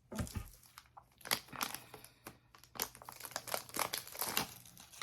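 Crinkling and tearing of medical supply packaging, likely the syringe wrapper being opened, as a run of irregular crackles.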